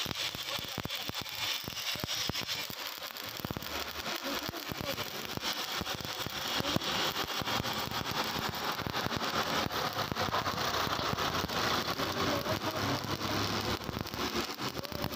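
Stick (shielded metal) arc welding on steel: the arc crackles and sizzles steadily, a dense run of tiny pops, as the electrode burns along the joint.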